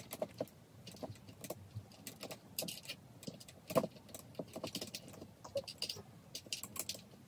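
Irregular light clicks, taps and rattles of plastic and metal parts as a ring light is handled and fitted onto a tripod head, with one louder knock a little before four seconds in.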